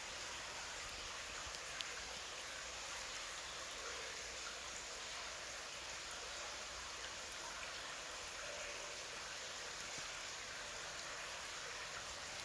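Water of a small stream flowing, a steady even rushing.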